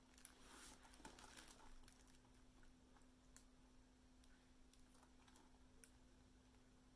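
Near silence: faint rustling and small clicks of a rhinestone-covered boot being handled and turned over, busiest in the first two seconds with a few single ticks later, over a faint steady hum.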